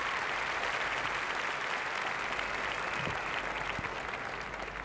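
A large audience applauding, a dense steady clapping that eases off a little near the end.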